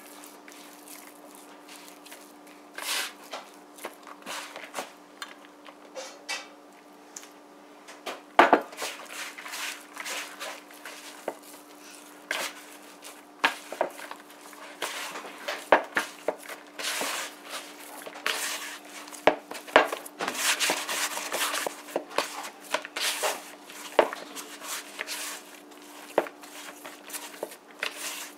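Hands mixing and kneading crumbly cassava-and-flour dough in a plastic bowl: irregular rubbing and squishing with frequent sharp knocks against the bowl, over a faint steady hum.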